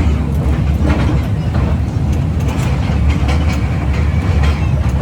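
Toy train running, heard from on board: a steady low rumble of wheels on rail with scattered clicks and knocks.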